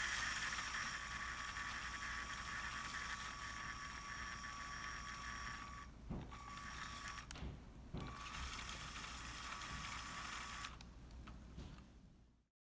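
LEGO model steam locomotive's electric motor and gear train running, a steady mechanical whir with a high whine and the rattle of the plastic side rods and wheels. The whine cuts out briefly about six and about seven and a half seconds in, and the sound fades out near the end.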